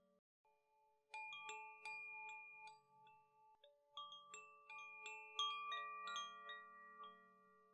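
Metal chimes struck in loose clusters, their clear high notes ringing on and overlapping. A near-silent second comes before the first strikes.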